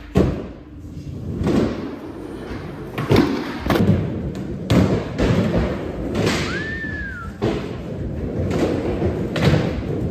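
Skateboards rolling on a concrete and wooden skatepark floor, with repeated sharp thuds and clacks of boards popping, landing and hitting ledges during backside tailslides. A short squeak, rising then falling, comes about six seconds in.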